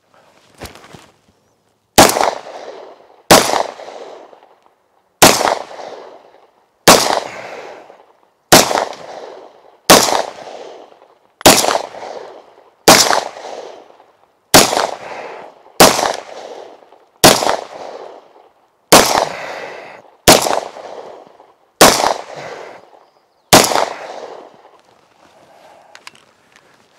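Walther P38 and P1 pistols fired one shot at a time: about fifteen sharp shots, one every second and a half or so, each followed by a short echo. The shots are two full eight-round magazines.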